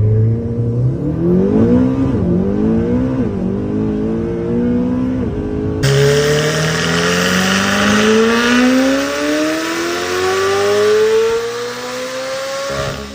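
Supercar engine under hard acceleration: revs rise and fall over the first few seconds. After a sudden change about six seconds in, the engine pitch climbs steadily for a long pull until near the end.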